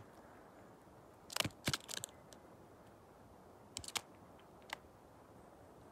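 A South Island robin pecking at a metal badge on a backpack: a few sharp taps, bunched about a second and a half in and again about four seconds in.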